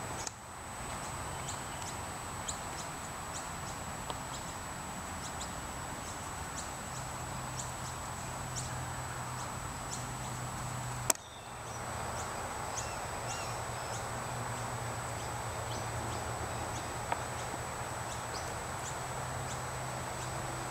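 Outdoor backyard ambience: a steady background hiss with a constant thin high-pitched tone and many short, faint high ticks scattered throughout. One sharp click comes about halfway through.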